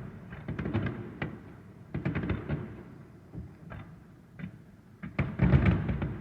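Aerial firework shells bursting in rapid succession, a string of booms and crackling bangs with echoing tails, the densest and loudest cluster of bursts near the end.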